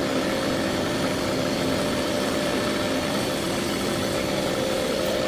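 An engine idling steadily, with a constant hum.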